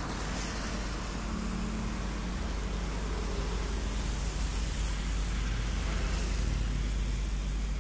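Road traffic on a rain-wet street: cars and motorbikes passing with tyre hiss on the wet tarmac over a steady low rumble, a little louder in the second half.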